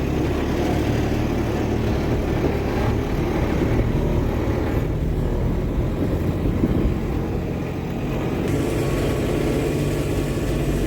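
Kubota farm vehicle's engine running steadily as it is driven, a low drone with road and rattle noise from the ride.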